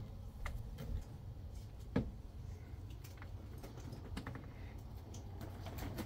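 Faint scattered clicks and light taps, with one sharper knock about two seconds in, over a low steady background rumble.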